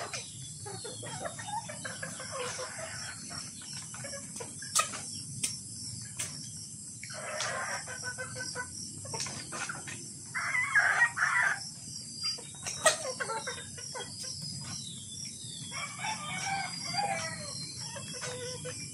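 Kelso gamecocks crowing in several bursts, the loudest a little past halfway, with chickens clucking between them. A few sharp taps of beaks pecking at a wooden board stand out.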